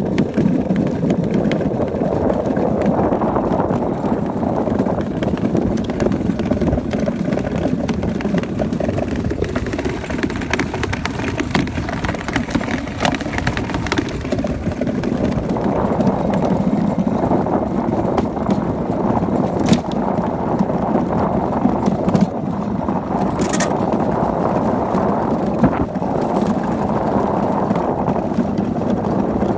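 Ice yacht's steel runners running over smooth lake ice: a steady rumbling hiss, with a few sharp clicks in the second half.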